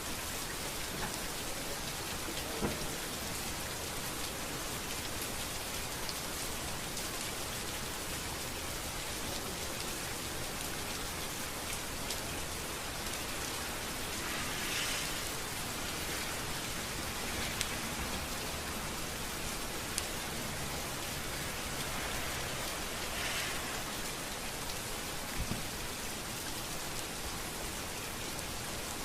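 Steady rain falling on a street, an even hiss with a few sharp drop taps scattered through it.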